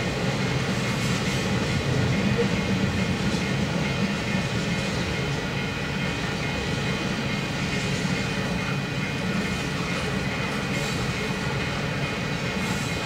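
Ethanol tank cars of a freight train rolling steadily past, a continuous rumble of steel wheels on the rails with a few faint clicks.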